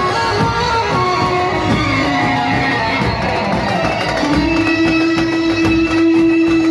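Indian wedding band playing a Bollywood film tune: a melody line over steady drumming, with one long held note from about four seconds in.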